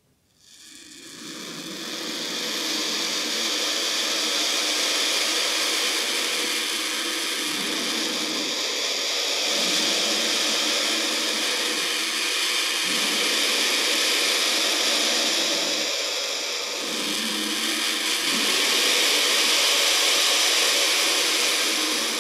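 Loud, steady hissing noise with slow swells in level, starting abruptly about half a second in.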